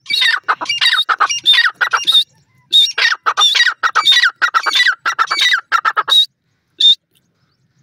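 Grey francolin (teetar) calling: a loud, rapid run of harsh, repeated rising-and-falling notes in two bouts, about two and three and a half seconds long with a short pause between, then one last note near the end.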